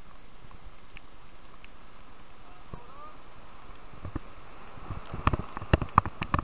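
Steady rush of whitewater rapids. From about four seconds in, a run of sharp knocks and splashes comes as the raft plunges into the rapid and water slaps against the raft and the helmet camera.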